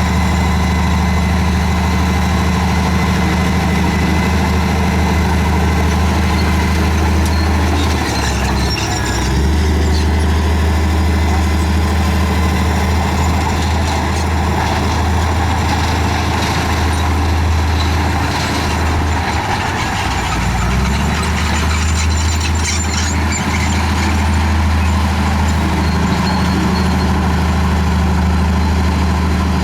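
Crawler bulldozer's diesel engine running steadily at working speed. Its pitch dips briefly twice, about a third of the way in and again just past the middle, then comes back up.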